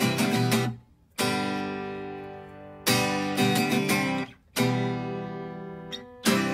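Intro music: acoustic guitar strumming chords that ring out and fade, with two short breaks.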